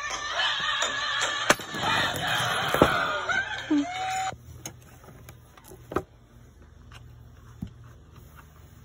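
Music playing from a phone's speaker cuts off suddenly about halfway through, leaving a quiet background broken by a few sharp knocks and taps.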